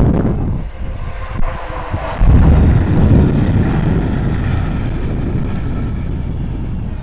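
A train passing at speed: a loud rumble and rush that surges suddenly about two seconds in and then slowly fades.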